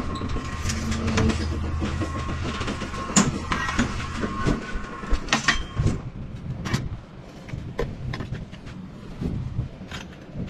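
Motorcycle engine rumbling at idle, with irregular sharp clacks and knocks over it; the rumble fades about halfway through.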